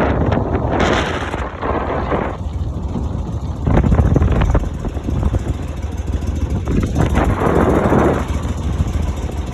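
Boat motor running steadily at low speed, with strong gusts of wind buffeting the microphone and choppy water in several loud surges.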